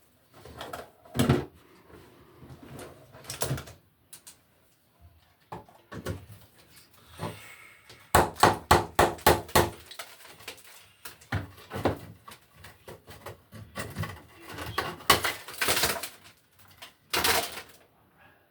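Hand tools knocking and scraping on a rusted metal electrical box as it is worked loose, with scattered sharp clicks and a quick run of rapid clicks about halfway through.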